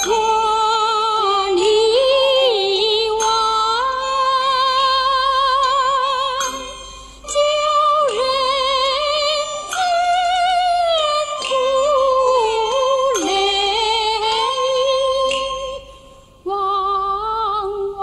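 A woman singing a slow vintage Mandarin popular song in a high voice with wide vibrato. There are short breaks between phrases about seven and sixteen seconds in.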